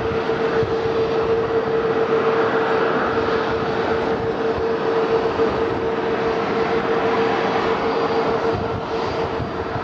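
Jet engines of a twin-engine China Postal Airlines freighter at taxi power: a steady rush with one steady droning tone held throughout.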